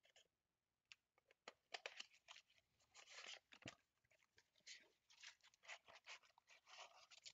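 Faint crinkling and tearing of plastic shrink wrap being pulled off a cardboard trading-card box, in quick irregular crackles with a few sharper clicks.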